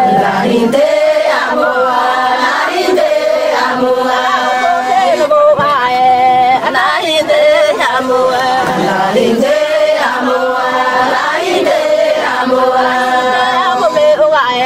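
A group of voices singing a chant together, in repeated phrases of long held notes.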